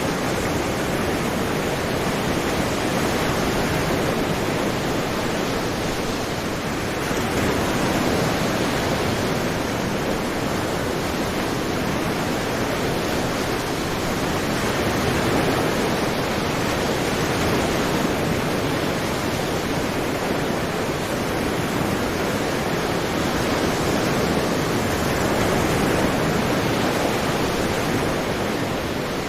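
Sea waves washing ashore in a continuous rush of surf, swelling and easing gently every several seconds.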